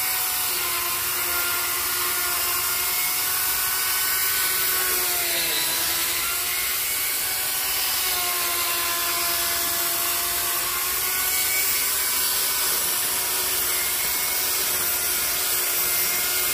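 Corded Makita electric chainsaw running steadily as its chain skims across the top of a thick log-slab tabletop. Its whine sags briefly in pitch a few times as the chain bites into the wood.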